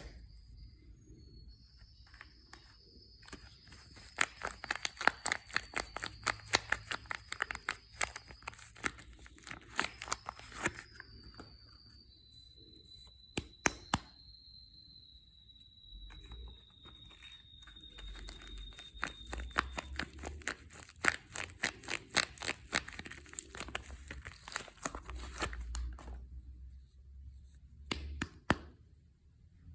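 Soap packaging being handled and torn open: bursts of crinkling and tearing wrapper, quieter in between. A faint high steady whine sits underneath for the first two thirds.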